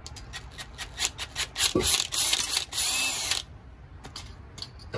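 Cordless power driver backing a bolt out of a scooter front-fork part: a few short trigger bursts, then a steady run of about two seconds that stops abruptly.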